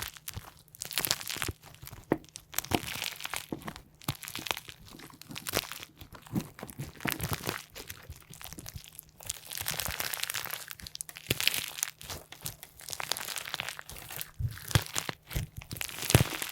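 Slime being squeezed and worked by hand, giving a dense, irregular run of crunching and crackling sounds.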